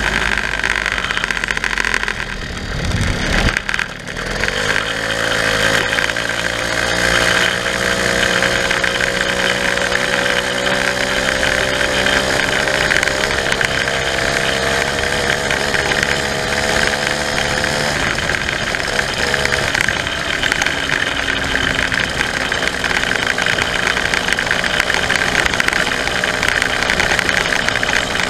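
Two-stroke moped engine running under way, geared with a newly fitted 11-tooth sprocket. Its note dips about three seconds in, then climbs slowly as the moped picks up speed. It falls back about eighteen seconds in and rises again at the very end.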